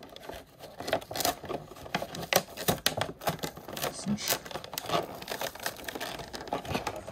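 Clear plastic blister packaging crinkling and crackling as hands work an action figure free of it, in a string of irregular clicks and rustles.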